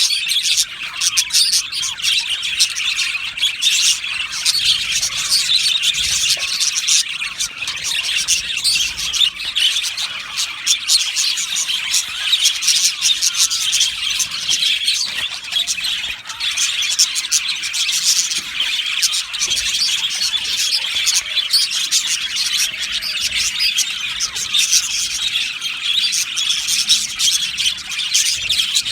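A colony of budgerigars chirping and warbling together, a dense, continuous chatter with sharp squawks mixed in.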